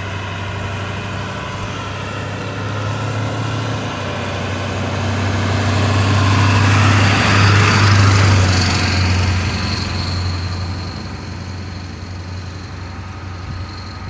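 A large motor vehicle passing, its engine rumble building to a peak about eight seconds in and then fading.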